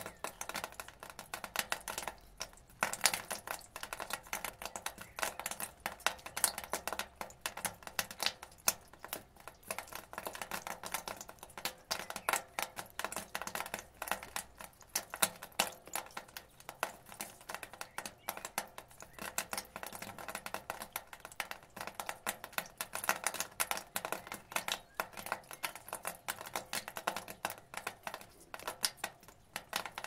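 Rainwater falling from a rain gutter onto the ground: a dense, uneven patter of drips and small splashes.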